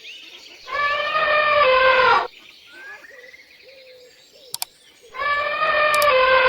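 An animal calling twice: two long, loud calls of fairly steady pitch, each about a second and a half, with birds chirping faintly in between.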